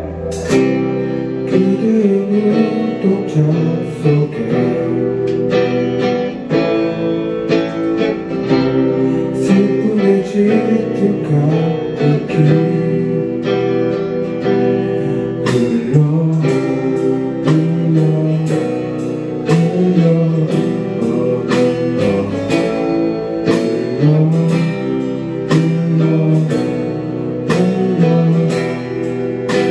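Live band playing a rock song: electric guitars, electric bass and drum kit, with a singer.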